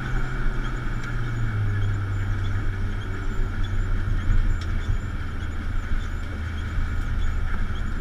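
Drift car's engine running at low, steady revs, heard inside the cabin as a low hum. The hum drops slightly in pitch about a second and a half in.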